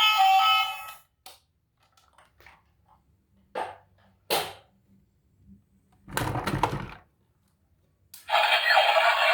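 A short melody cuts off about a second in. After it come a few sharp clicks and knocks, a denser rattle of handling noise about six seconds in, and then a loud, noisy sound that starts near the end.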